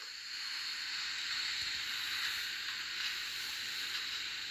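Steady, even hiss of background noise with no speech, sitting high in pitch.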